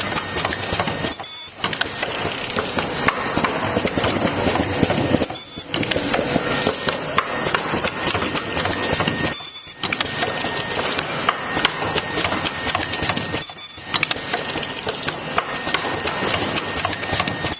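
Mask-making machine's ear-loop feeding, cutting and welding unit running: dense rapid clicking and mechanical clatter, easing off briefly about every four seconds.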